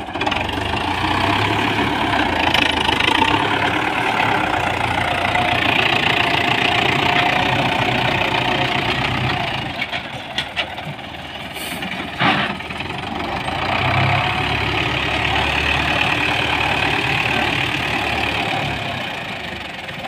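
Belarus 510 tractor's diesel engine running steadily while working, with a brief dip and a few sharp clicks about halfway through before it runs on.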